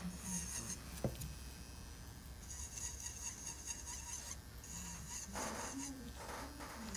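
Saeshin Briant B-170 electric nail drill running faintly. Its high whine comes and goes as the bit grinds and sands at the cuticle and nail fold. There is a single sharp click about a second in.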